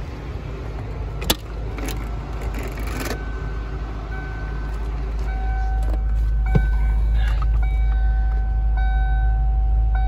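Driver's door of a 1993 Ford Thunderbird 5.0 being unlatched and opened, with a sharp click about a second in, some knocking, and a thump about six and a half seconds in as someone gets into the seat. Under it is the steady low rumble of the idling 5.0 V8, and a steady electronic warning tone sounds through the second half.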